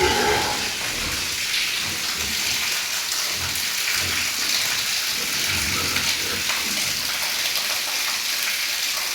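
Steady hiss of running or spraying water.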